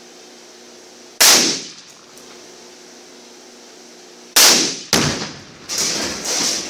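Rifle shots fired at a tannerite-rigged refrigerator target: one about a second in, two quick ones about half a second apart near the middle, then a longer double bang near the end, each sharp with a trailing echo.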